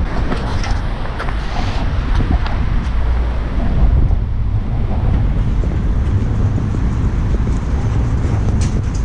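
Wind buffeting the microphone in a steady low rumble, with footsteps clanking now and then on steel grating stairs.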